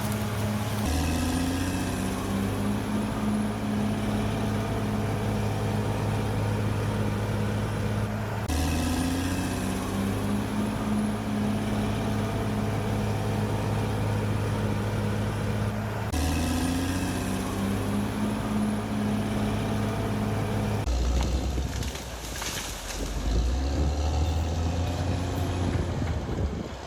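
Bulldozer's diesel engine running in a steady drone, with abrupt jumps in the sound where the footage is cut. Near the end the engine note drops lower and rougher.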